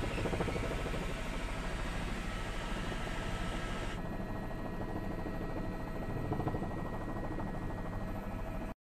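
Helicopter engine and rotor noise, a steady drone with a low pulsing underneath. The sound briefly cuts out near the end.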